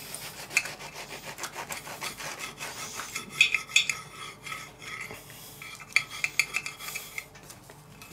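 A knife sawing through a crisp grilled tortilla pocket in irregular rasping strokes, the blade clicking and scraping against a porcelain plate, with a few brief high squeaks in the middle.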